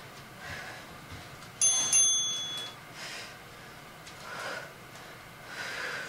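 A pair of 25-pound dumbbells knocking together twice in quick succession, about a third of a second apart, with a short high metallic ring after the clinks.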